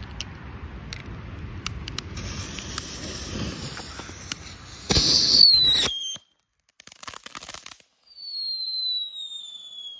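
Small Röder F1 firework fountains: a spluttering fuse hiss, then a loud spray at about five seconds with a high whistle that drops in pitch. A second high whistle slides slowly downward from about eight seconds on.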